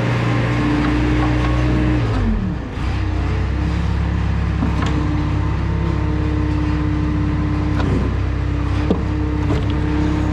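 Four-wheel-drive vehicle's engine running steadily; about two seconds in its pitch drops as the revs fall, then it holds at a lower, steady note. A few brief clicks or knocks sound over it later on.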